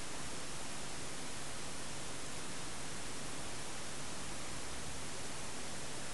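Steady, even hiss of recording noise with no other events: the open microphone's background static between the narrator's remarks.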